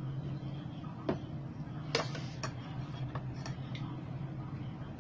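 A few light clicks and taps of a spoon and dishes at the table, the sharpest about one and two seconds in, over a steady low hum.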